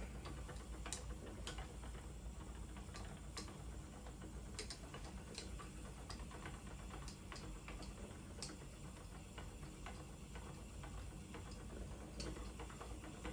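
Schacht Sonata spinning wheel being treadled while plying yarn: faint, irregular clicks and ticks from the wheel's mechanism over a low steady hum.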